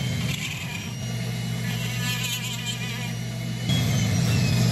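Foredom flex-shaft rotary tool running with a Kutzall carving burr grinding into red cedar driftwood: a steady motor hum with a buzzing whine. The tone shifts about a second in, and it gets louder near the end.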